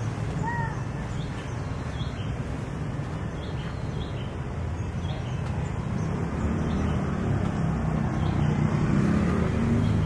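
Outdoor street ambience: a steady low traffic rumble that builds louder over the last few seconds, as a vehicle passing close by would. A bird gives a few short chirps about half a second in.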